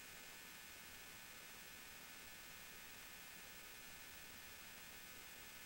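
Near silence: a faint, steady electrical hum and hiss.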